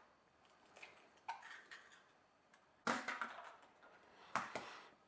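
Eggs being cracked for the egg muffins: a few short cracks with a brief crunch after each, about a second and a half apart, the last two the loudest.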